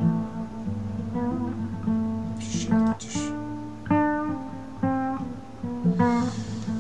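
Instrumental music: a plucked guitar-like string instrument plays a melody of single notes over held low bass notes. Two brief brighter strikes come about two and a half and three seconds in.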